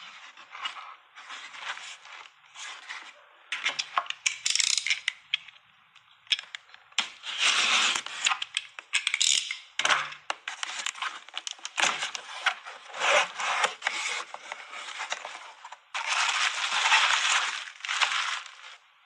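Hands opening a taped cardboard shipping box: irregular scraping, tearing and crackling of cardboard and packing tape with sharp clicks, then plastic bubble wrap crinkling in a long loud stretch near the end.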